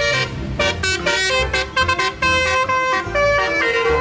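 Multi-tone 'telolet' bus horn playing a quick tune of short notes that step up and down in pitch, over a low rumble.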